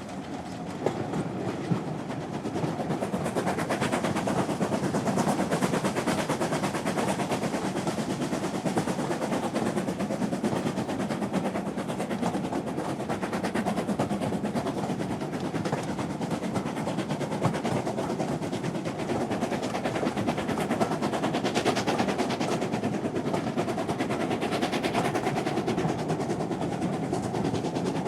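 A train running steadily at speed, with a continuous rumble and rattle of wheels on the track, growing a little louder over the first couple of seconds.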